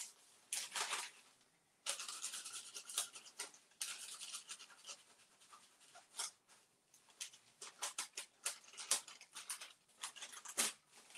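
Small paintbrush scratching across a sheet of thin decoupage paper held in the hand, in many short irregular strokes, with the paper rustling.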